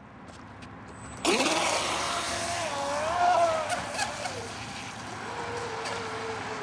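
Radio-controlled model boat's motor coming in suddenly about a second in, its pitch rising and falling as the throttle is worked, then settling into a steady drone.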